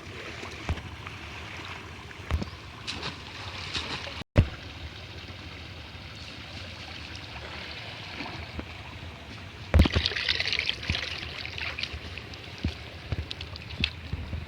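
Water splashing and trickling, with scattered knocks and a louder burst of splashing about ten seconds in.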